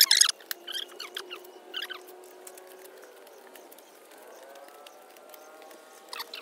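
Bristle brush and cloth scrubbing over the hard surface of a fiberglass mould: a harsh scratching burst that stops about a third of a second in, followed by scattered light clicks and then a faint, steady background.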